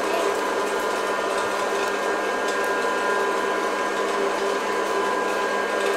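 Hot-air popcorn popper running with a steady fan-and-blower whir and a constant hum.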